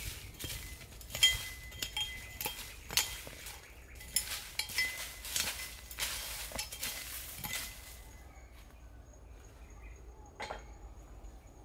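Repeated clinks and knocks of hard objects, some of them ringing briefly like metal, for about eight seconds. After that it goes quieter, with one more clink near the end.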